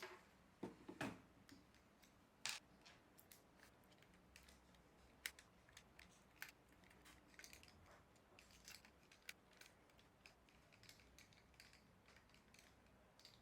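A small screwdriver backing two screws out of the plastic casing of a DJI Mavic Air remote controller: faint, irregular clicks and ticks of the bit and the screws, with a few louder knocks of the tool on the case in the first few seconds.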